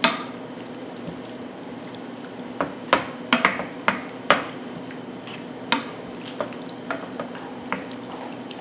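Wooden spoon stirring chunks of chicken in a cream sauce in a stainless steel skillet, with irregular light knocks of the spoon against the pan over a steady low hum.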